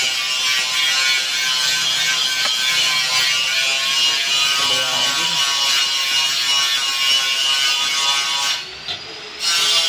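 Background music with sustained, droning tones; it drops out briefly near the end. No welding arc is heard.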